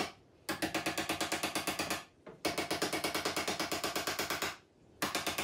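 Cordless power driver fastening an electrical box to a wall stud, running in three bursts of rapid clicking, about ten clicks a second, stopping abruptly between bursts.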